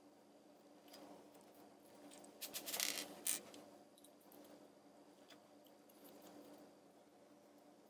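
Small plastic LEGO minifigure parts clicking and rattling in the hands, with a short cluster of clicks between about two and a half and three and a half seconds in, ending in one sharp click, over a faint steady hum.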